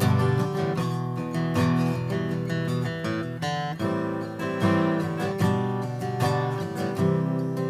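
Acoustic guitar strumming a chord progression, with plucked notes ringing between the chord strokes.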